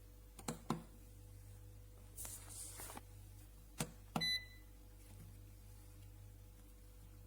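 Xiaomi Smart Air Fryer's control panel giving a short high beep a little past the middle, among a few light clicks and a brief hiss.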